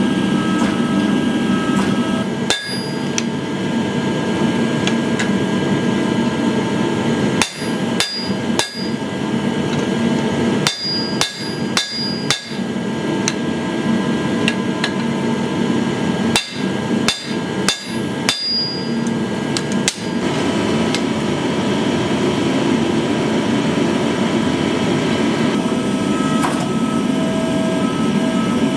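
Hand hammer blows ringing out on a handled tool held against hot steel on an anvil, in quick groups of three to five strikes with pauses between. Under them a forging press's machinery drones steadily, heard alone before the first blow and after the last.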